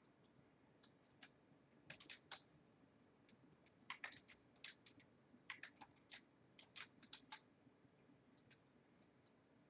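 Faint, irregular keystrokes on a computer keyboard, coming in short uneven runs of clicks.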